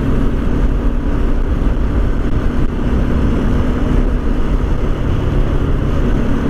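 Motorcycle engine running steadily at cruising speed under heavy wind rush on the rider's helmet-mounted camera microphone.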